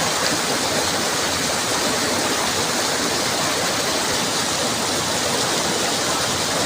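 Fast mountain stream rushing steadily, an even, unbroken wash of water noise.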